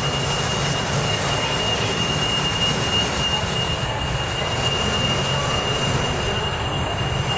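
Transit bus running with a low diesel rumble, a steady high-pitched whine held over it.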